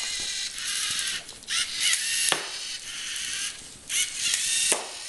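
LEGO Mindstorms NXT robot's servo motor and plastic gear train whirring in repeated bursts of about a second each as it works its ball shooter, firing shot after shot.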